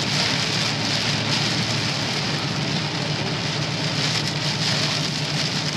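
Heavy rain hitting the windshield and body of a moving vehicle at highway speed: a steady, dense hiss over a low, even hum of engine and tyres on the flooded road.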